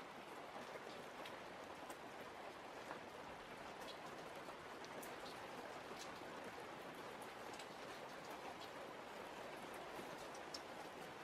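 Faint steady rain falling, with scattered light clicks and crackles of empty plastic water jugs being handled.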